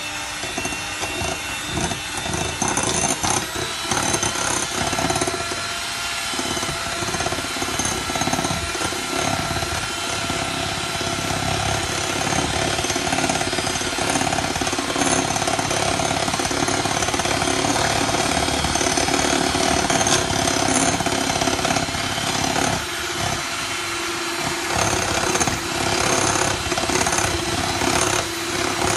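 Electric mixer motor running steadily while beating sponge-cake batter in a bowl.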